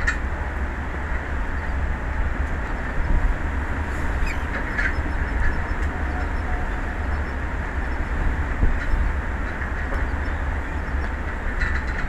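Strong wind on an exposed offshore tower buffeting the microphone: a steady rushing noise with a deep rumble, broken by a few brief sharp rattles.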